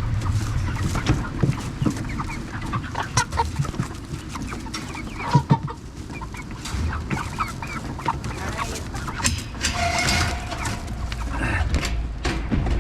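A group of Cornish Cross meat chickens clucking and squawking while crowded into a transport cage, with scattered sharp knocks. The loudest are two knocks about five seconds in.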